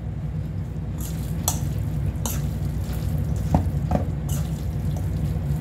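Sauced soba noodles being tossed in a stainless steel bowl: soft wet stirring with several light clicks and scrapes of the utensil against the bowl, over a steady low hum.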